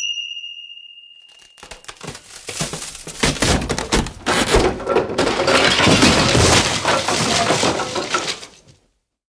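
Cartoon sound effect: a little ding rings out and fades, a few small ticks like a tiny pebble landing follow, then a big wooden house collapses in a long clattering, splintering crash lasting about seven seconds before stopping suddenly.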